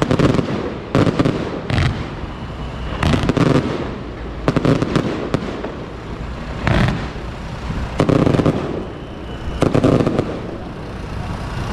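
Fireworks going off: loud bangs and crackling at uneven gaps of about one to two seconds.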